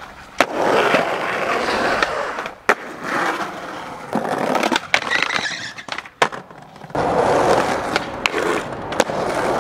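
Skateboard wheels rolling over rough pavement, broken by sharp clacks of the board popping and landing about five times, with abrupt changes between separate takes.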